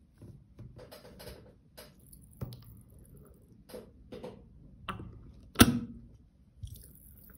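Pink PVA glue being squeezed from a plastic squeeze bottle into a glass bowl: scattered soft clicks and crackles from the bottle and glue, with one sharp click about five and a half seconds in.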